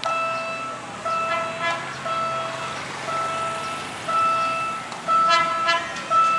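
A warning tone sounds in regular beeps about once a second, each about half a second long, as a PNR commuter train approaches. A second, richer pitched sound joins it briefly twice, about a second and a half and five and a half seconds in.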